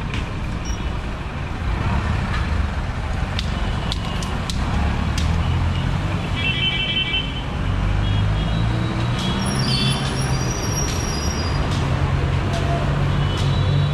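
Street traffic: vehicle engines running in a steady low rumble, with scattered clicks and short high-pitched tones about six and nine seconds in.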